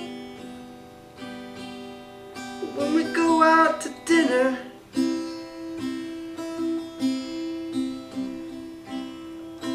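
Acoustic guitar strummed, chords ringing out, with a voice coming in briefly about three seconds in; in the second half the chords are strummed about twice a second.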